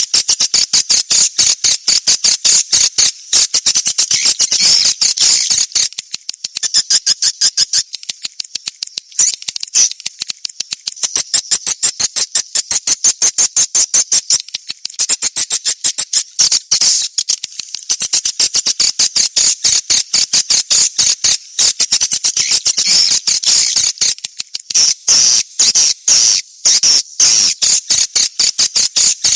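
Recorded edible-nest swiftlet calls: a loud, rapid, high-pitched chirping twitter in dense pulses with short breaks. This is a swiftlet call lure track, played to draw swiftlets into a nesting house.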